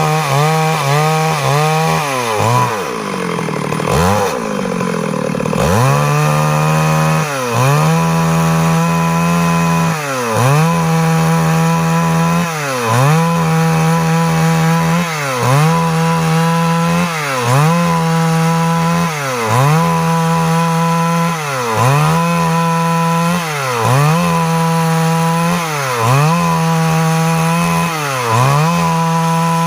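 Stihl MS382 two-stroke chainsaw running at high revs while cutting wood. Its pitch sags under load and recovers about every second and a half to two seconds, with one longer, deeper sag about two seconds in.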